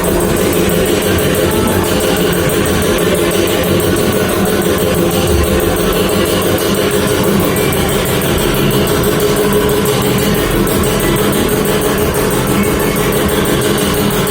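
Background music, playing steadily throughout.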